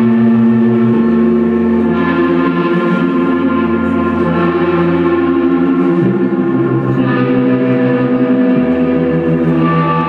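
Live instrumental ambient music: electric guitar and synthesizer hold long, layered, ringing chords with a fast pulsing shimmer in the low end. The bass notes change every few seconds.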